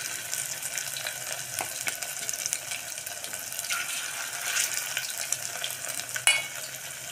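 Coated chicken nuggets deep-frying in hot oil in an aluminium pot: a steady crackling sizzle full of small pops. A spoon turns the pieces, and near the end there is one sharp metallic clink.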